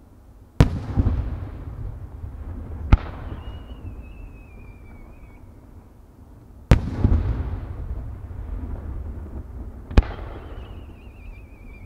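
Aerial fireworks shells: two deep bursts, about a second in and again about two-thirds of the way through, each trailing off in a long rumbling echo. Between them, twice, a sharp launch crack is followed by a wavering whistle that falls slowly in pitch as the shell climbs.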